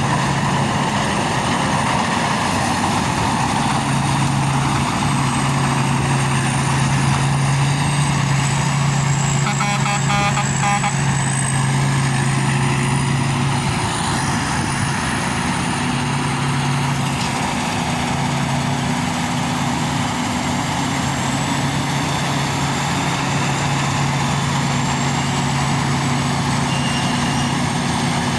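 Rice combine harvester running steadily: a continuous heavy engine hum with a faint, wavering high whine above it, easing slightly about halfway through.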